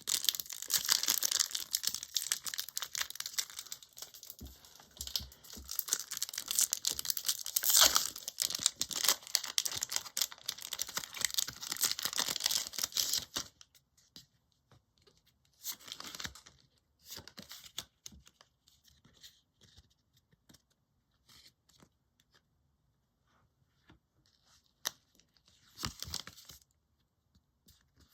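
Foil wrapper of a Pokémon trading card booster pack crinkling and tearing open, a dense crackle for about the first half; after that, only scattered soft rustles and brushes of the cards being handled.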